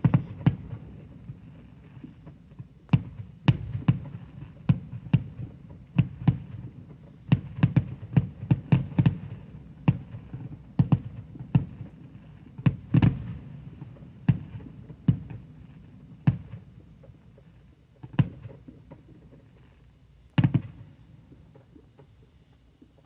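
Fireworks going off in an irregular run of sharp bangs over a low rumble, several a second at the busiest, thinning out in the last several seconds with one more loud bang near the end.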